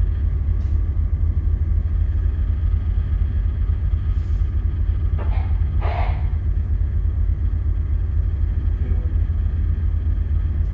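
Steady low rumble of a ship's engine and machinery heard on the bridge, with a faint steady hum of equipment over it. A short louder sound comes a little past halfway.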